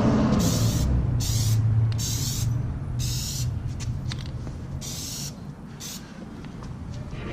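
Aerosol can of Plasti Dip spraying in about six short hissing bursts, each around half a second long, as a coat is laid on. A low steady hum runs underneath.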